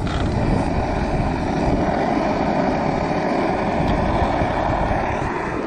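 MSR liquid-fuel camping stove burning at full after priming, a loud, steady rushing roar of the burner flame.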